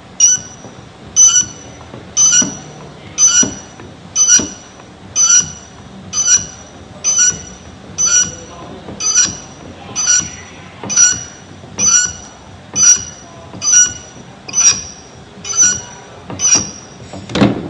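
OPT S-505 hydraulic cable cutter's pump handle being worked, a short metallic squeak with every stroke, about once a second, as the blade is driven through a 185 mm² THW cable. A louder, deeper knock near the end as the cut finishes.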